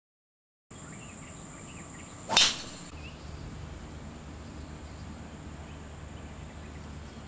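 A golf tee shot: a single loud, sharp swish and crack of the club through the ball about two and a half seconds in.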